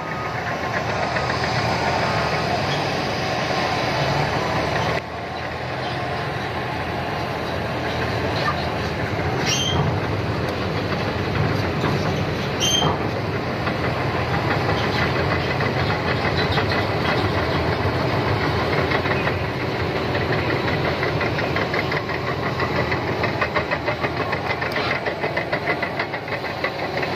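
Liebherr PR745 crawler bulldozer running, its diesel engine and steel tracks making a steady mechanical clatter. Two short high squeaks come midway.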